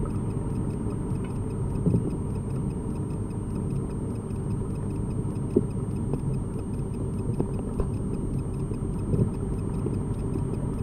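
Underwater ambience picked up through a camera's housing: a steady low rumble of water noise with faint steady ticking and a thin high whine. A few soft knocks are scattered through it.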